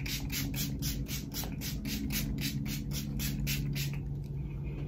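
Rapid spritzes from a handheld pump spray bottle of makeup setting spray, about five short hissing sprays a second, stopping a second before the end.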